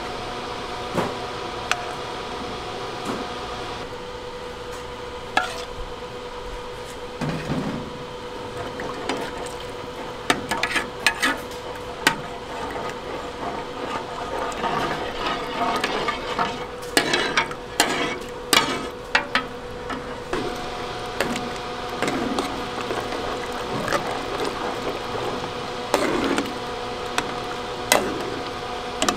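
Metal ladles and a spatula stirring broth and rice cakes in a large aluminium pan, with liquid sloshing and sharp clinks of metal against the pan, thickest in the middle, over a steady machine hum.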